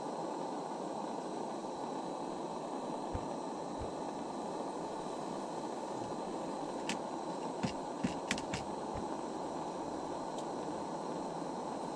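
Steady hiss with a handful of sharp, light clicks about seven to nine seconds in, from hands working a small fishing rig and line.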